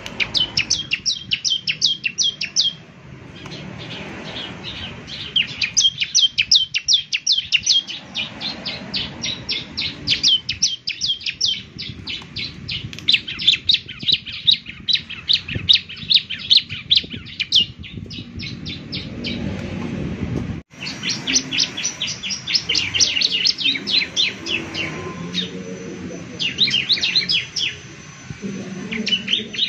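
Bar-winged prinia (ciblek) singing in bouts of rapid, high chirping notes, several a second, with short pauses between the bouts. The song is briefly cut off about two-thirds of the way through, then starts again.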